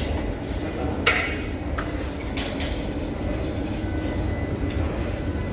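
Berlin U-Bahn train standing at the platform with its doors open, giving a steady low rumble and hum in the underground station. A few short sharp clicks and hisses stand out, the strongest about a second in.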